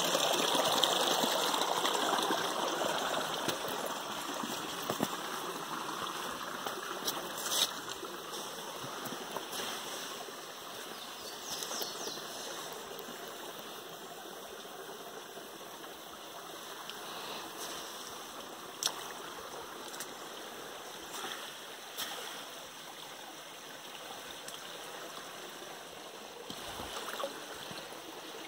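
Shallow forest stream trickling over stones, louder for the first few seconds and then steadier and softer, with a few short sharp clicks scattered through.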